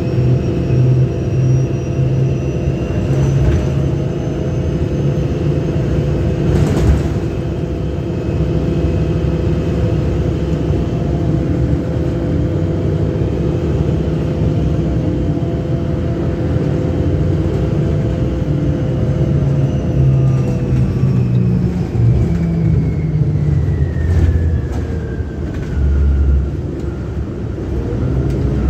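A 2009 Orion VII Next Generation hybrid-electric transit bus with a Cummins ISB diesel and BAE HybriDrive, running. A steady low drone carries several high whines, and one whine falls in pitch over a few seconds about three-quarters of the way through. There is a single knock about seven seconds in.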